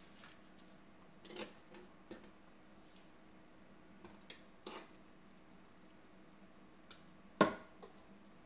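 A fork clinking on a plate and raw chicken strips set down in a slow cooker's pot: a few scattered soft taps and clicks, the loudest near the end.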